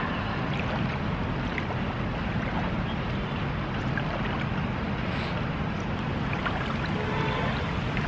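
Steady rushing noise of the flowing river, with wind buffeting the microphone; no distinct events.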